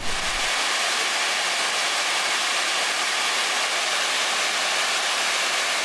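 Small waterfall cascading over boulders: a steady, bright rush of falling water with little deep rumble.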